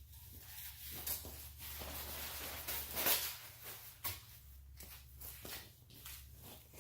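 Rustling and handling noise with a few light knocks and clicks, from hands working a light strip and its wiring into place under the motorcycle.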